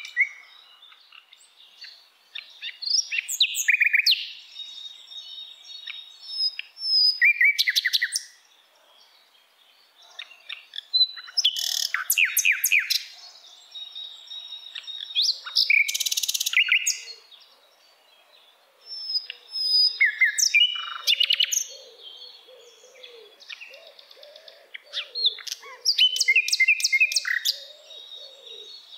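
Birds chirping and singing in loud bursts of quick trills and whistled glides every few seconds, with quieter spells between; a brief hiss about sixteen seconds in.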